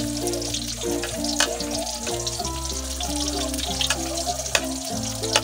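Garlic and shallots sizzling in hot oil in a steel wok, with a metal spatula clinking against the pan now and then. Background music plays throughout.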